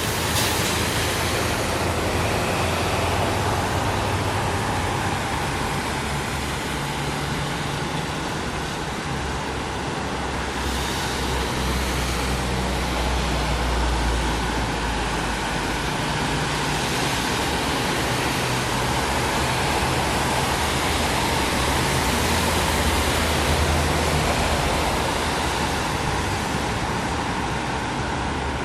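City street traffic on a wet road: a steady stream of cars passing, tyres hissing on the wet surface over low engine rumble, swelling and fading as vehicles go by.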